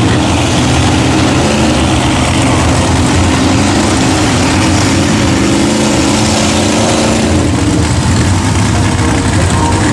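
Big-block V8 engine of a Mazda mega mud truck running loud and hard in deep mud, its pitch rising and falling a little.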